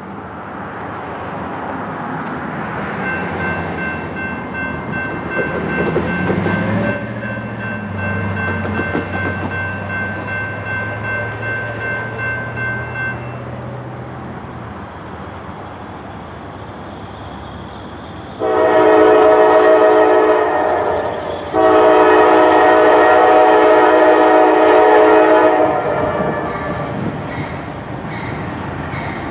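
A Norfolk Southern GE AC44C6M diesel locomotive approaches at the head of an intermodal train, its rumble building. About two-thirds of the way in, its air horn sounds two long blasts, which are the loudest sound. A steady high ringing tone runs for several seconds near the beginning.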